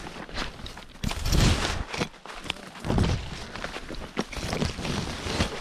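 Footsteps of hikers walking a woodland trail: irregular steps with low thuds and rustling.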